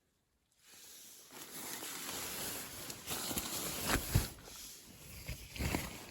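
Rustling and scuffing noise close to the microphone, with soft thumps about four seconds in and again near the end.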